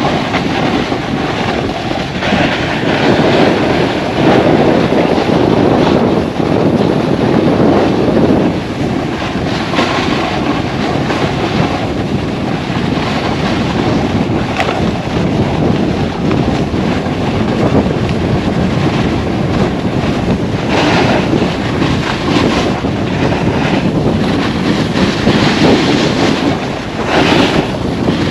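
Wind rushing over the microphone of a moving skier or snowboarder, mixed with the scrape of edges sliding on snow. Harder, hissier scrapes stand out about two-thirds of the way through and again near the end.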